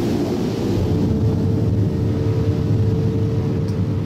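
A motor running steadily at an even pitch, a constant hum over a low rumble and a wash of noise.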